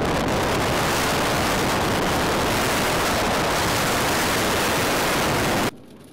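Loud, steady rush of wind buffeting the microphone of a camera filming from a moving vehicle's side window. It cuts off abruptly near the end, leaving a much quieter hush.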